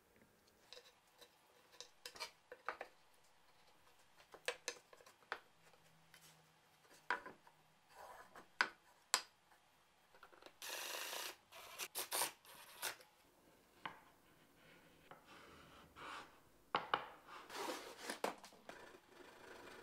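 Plywood parts being handled on a workbench: scattered light knocks and taps of wood on wood, and scraping rubs as plywood arms slide against a plywood box side. The longest scrape, just under a second, comes about halfway through, and a cluster of rubbing comes near the end.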